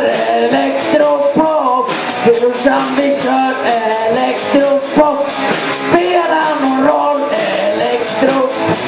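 Rock song with a sung lead vocal over electric guitar and a drum kit keeping a steady beat.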